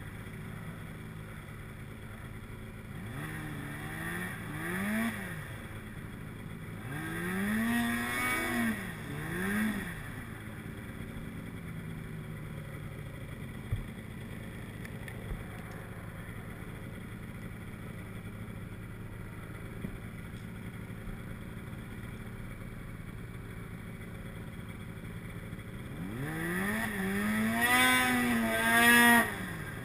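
A snowmobile engine idling steadily and revved in short blips: twice about three seconds in, three times about eight seconds in, then a longer, wavering rev near the end.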